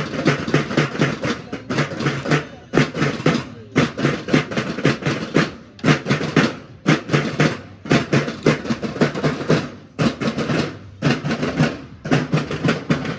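Marching drums, snare drums over a bass drum, playing a fast rhythmic cadence in repeated phrases with short breaks between them.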